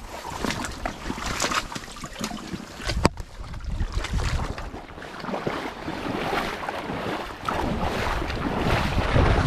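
Wind buffeting the microphone, with irregular rustles and knocks and one sharp click about three seconds in; the low rumble of the wind grows stronger near the end.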